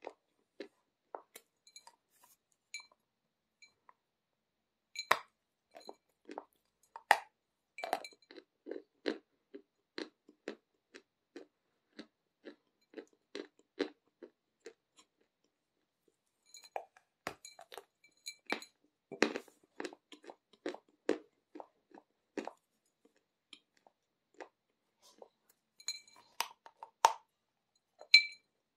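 Close-miked chewing of a lump of Aktobe chalk: dry crunching at about two strokes a second, with a few louder snaps as pieces are bitten off and a short pause midway.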